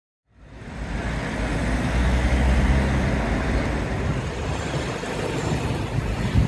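City street traffic noise with a low rumble of passing vehicles, fading in within the first second.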